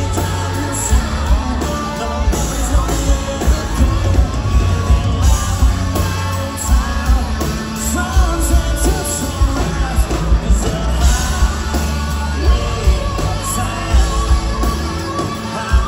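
Live rock band playing with electric guitars, bass and a steady drum beat, under a sung lead vocal and yells, heard from among the audience in a large hall.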